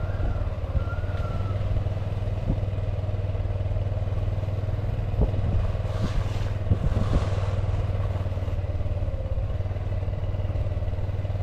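Honda Super Cub C125's single-cylinder engine running steadily at an even pitch, with a few short knocks and rattles about five to seven seconds in.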